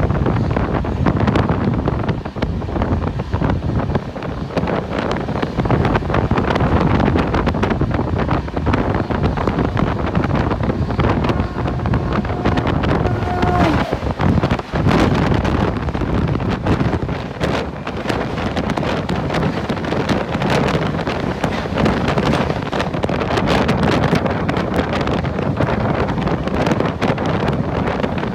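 A moving train with wind buffeting the microphone, heard from the carriage: a steady rush and rumble with frequent clatter and knocks. A brief faint tone comes through about 13 seconds in.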